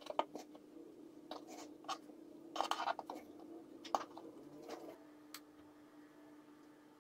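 Light scraping and tapping as fingers and a metal spatula press crumbs onto a cake on a metal baking tray, with a longer, noisier scrape near the middle. A faint steady hum runs underneath.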